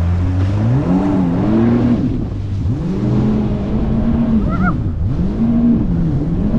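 Jet ski engine throttling up hard from near a standstill: its pitch climbs steeply about a second in as the craft gets up to speed, then holds high, dipping and climbing again several times, over the rush of water.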